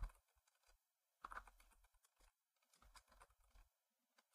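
Faint computer keyboard typing: scattered keystroke clicks, with a louder one right at the start and a short cluster about a second and a quarter in.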